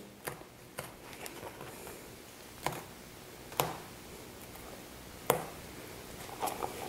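Razor blade cutting the thread of a vinyl car seat cover's seam: several sharp, separate clicks a second or so apart as stitches snap.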